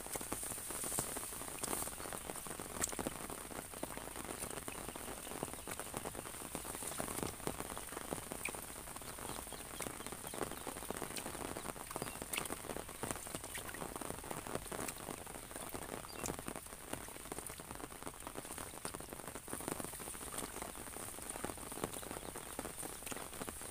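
Rain falling on an open fabric umbrella held overhead and on the rice paddy around it: a steady rain hiss with many irregular sharp drop taps on the canopy.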